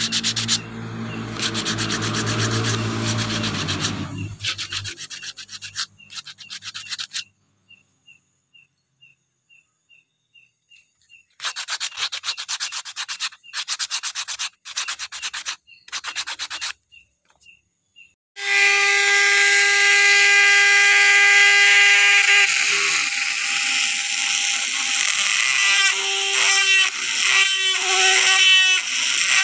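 A small motorised sanding wheel runs against a piece of sonokeling root wood and stops after about four seconds. About halfway through comes a series of short rubbing strokes as the wood is sanded. Near two-thirds through, a high-speed rotary carving tool starts with a steady high whine and grinds into the wood, cutting the honeycomb dimples.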